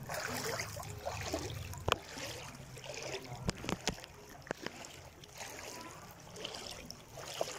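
Shallow floodwater sloshing and swishing as someone wades through it, with a few sharp clicks around two and four seconds in.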